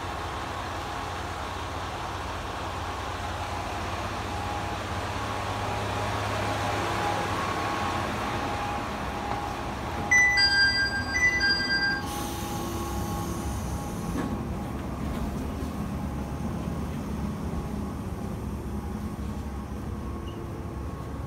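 Tsugaru Railway diesel railcar running with a steady low rumble and hum. About ten seconds in, a loud electronic chime of alternating high tones sounds for about two seconds.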